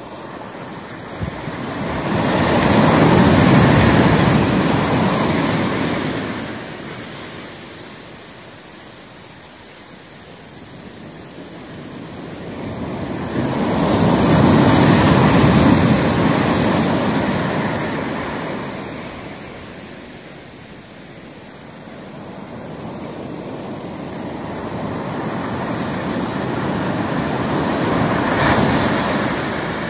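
Rough ocean surf breaking and washing up a sandy beach: three waves crash in turn, each a rush that swells over a few seconds and then fades as the foam runs up the sand.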